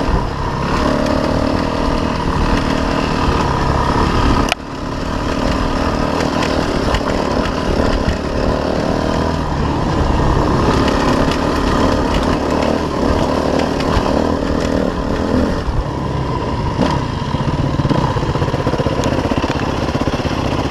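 Enduro dirt bike engine running under changing throttle while riding a trail, its pitch stepping up and down. A sharp click about four and a half seconds in comes with a brief dip in the engine sound.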